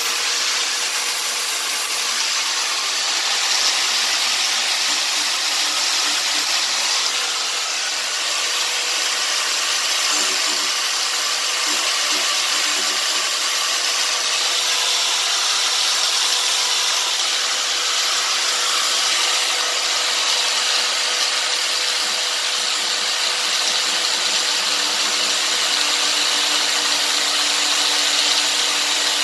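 Electric angle grinder running at steady speed, its disc grinding down the sides of a metal pressure-washer nozzle tip, with a steady high motor whine over the grinding noise.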